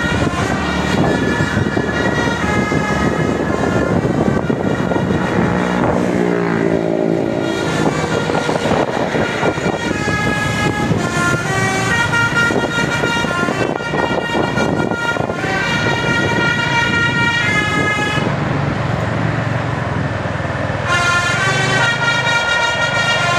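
Bus telolet horn, the multi-tone musical horn of an Indonesian bus, playing a tune in quick stepped notes over engine and road noise. Partway through it runs down through a string of lower notes, and near the end the high notes break off for a few seconds before starting again.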